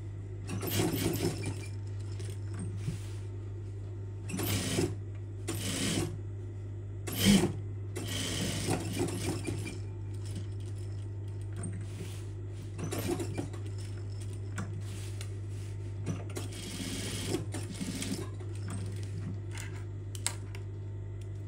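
Sewing machine stitching a pocket onto a garment in several short runs of one to two seconds, over a steady low motor hum, with a sharp knock about seven seconds in.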